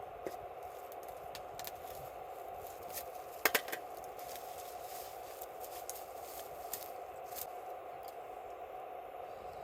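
Wood campfire crackling over a steady hiss, with irregular sharp pops and a louder burst of several pops about three and a half seconds in.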